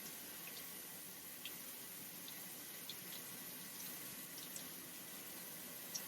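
Faint, steady hiss of running shower water, with scattered small drips.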